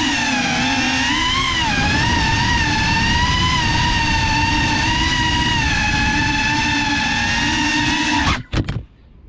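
FPV quadcopter's brushless motors and propellers whining close up, the pitch wavering with throttle. About eight seconds in the motors cut out with a few knocks as the drone touches down.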